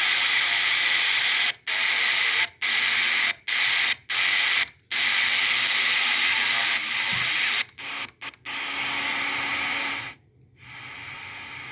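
CB radio receiver putting out loud static hiss that cuts out abruptly for split seconds about ten times and comes back each time. Near the end it drops to a fainter steady hiss.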